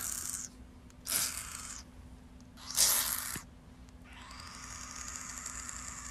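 Thick-tailed barking gecko giving three short raspy barks about a second apart, then a longer, steadier rasping call from about four seconds in. This is its defensive bark when touched.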